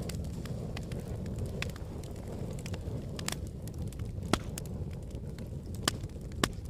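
Fire burning with irregular crackles and sharp pops over a steady low rush, the loudest pop about four seconds in.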